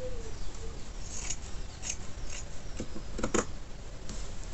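Orange-handled fabric shears snipping through fabric, a series of short cuts while the front neckline is cut open.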